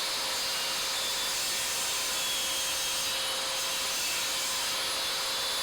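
Table saw running and cutting through a piece of wood, a steady even whirr that holds level with a faint steady hum under it.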